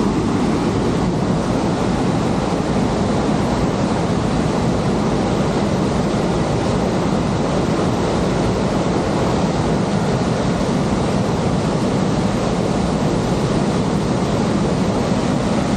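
Aira Force waterfall rushing in a steady, loud roar of falling water, running high after days of heavy rain.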